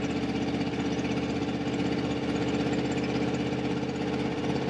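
Motorhome engine running steadily while driving, a constant drone with road noise, heard from inside the cab.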